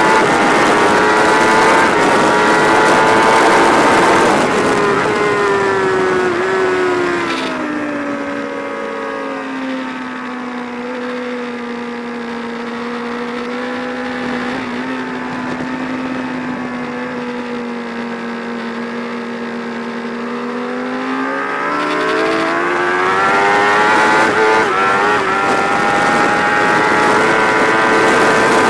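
Sports motorcycle engine heard onboard at high revs. It falls away over a few seconds as the rider slows, runs at lower steady revs for a long stretch, then climbs back to high revs near the end as the bike accelerates.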